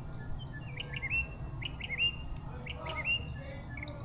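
A small bird chirping: short, quick chirps in clusters of two or three, about one cluster a second, over a low steady rumble.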